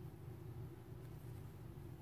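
Quiet room tone: a faint, steady low hum with light background hiss, and no distinct events.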